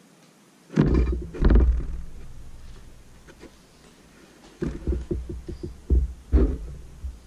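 Bumps and knocks on the painting setup. Two heavy, dull thumps come about a second in, then a quick run of lighter knocks near the end as a long brush handle moves across the easel.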